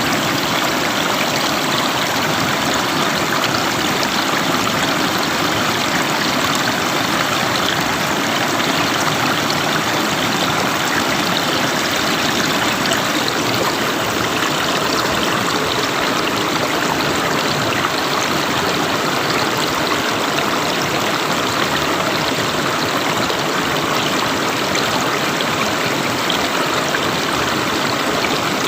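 River water flowing, a steady, unbroken rush of running water.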